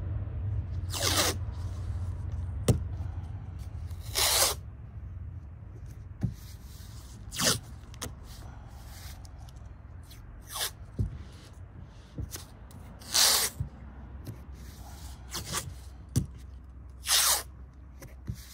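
Masking tape being pulled off the roll and pressed down along the edge of a canvas patch: about seven short ripping strips, spaced a few seconds apart, with light rubbing of hands on the canvas between them.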